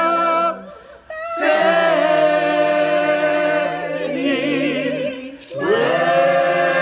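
Mixed men's and women's a cappella choir singing an African-American spiritual in long held chords with vibrato. The singing breaks off briefly about half a second in, and again near the end before a new chord comes in.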